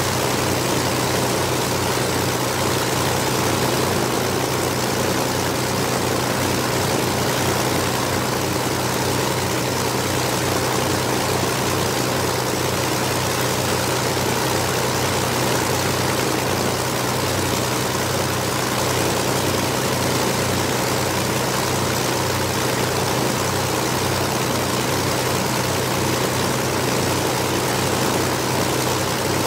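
A de Havilland Mosquito's two Rolls-Royce Merlin V-12 engines running steadily with propellers turning, with an even low pulsing throughout.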